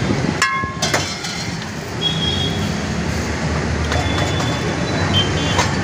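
Steady low rumble of street traffic noise, with a few brief thin high tones over it.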